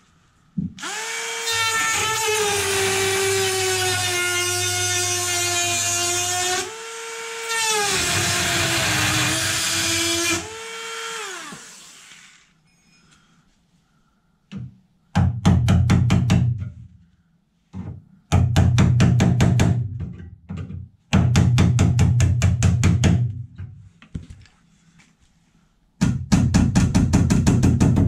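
Electric drill running for about ten seconds as it drills out a car body's spot welds, its whine sagging in pitch under load and briefly picking up in the middle before winding down. Then come four bursts of rapid, evenly spaced rattling strikes, each about two seconds long.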